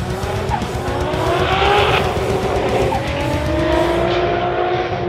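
Toyota Supras' engines at full throttle, accelerating down a drag strip, rising in pitch with a gear change about three seconds in.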